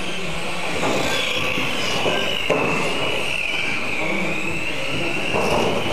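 Electric motors of several mini RC cars whining as they race, the pitch wavering up and down with the throttle.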